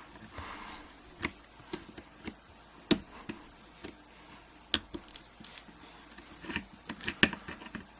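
Irregular sharp metallic clicks and taps of pliers working against a euro cylinder lock, trying to grip the clip that holds the cylinder's core in.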